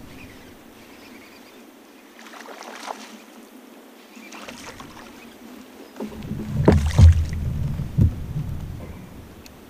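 Handling noise on a plastic sit-on-top fishing kayak: fairly quiet for the first half, then from about six seconds in a low rumble with several sharp knocks and thumps against the hull.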